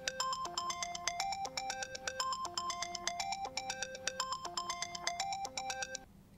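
Smartphone ringing with a bright melody of short plinking notes, the same phrase repeating about every two seconds; it cuts off about six seconds in as the phone is picked up.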